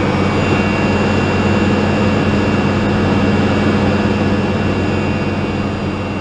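Rolls-Royce Viper 535 turbojet of a BAC Strikemaster running steadily on a ground run, heard from inside the cockpit: a loud, even roar with a steady high whine, easing off slightly near the end.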